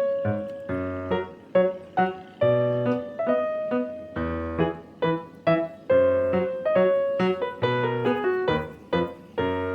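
Background music: a piano or keyboard melody of struck notes, about two to three a second, each dying away.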